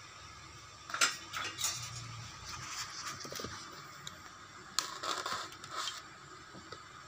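A clatter of handled objects about a second in. Later, a thin needle-like knife made from an old wood-saw blade is pushed into a block of styrofoam, scraping and crunching through the foam.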